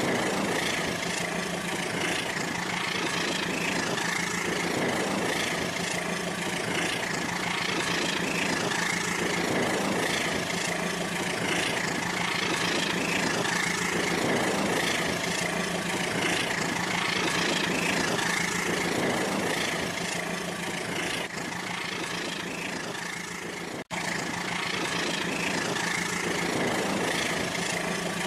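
Rail King battery-powered toy train running on its track: a steady motor whir with a slow, regular swell every few seconds. It cuts out for an instant about 24 seconds in.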